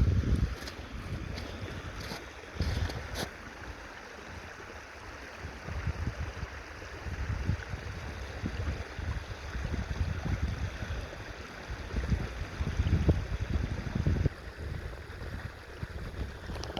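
Wind buffeting the phone's microphone in uneven low gusts over a steady hiss, with a few sharp clicks about two to three seconds in.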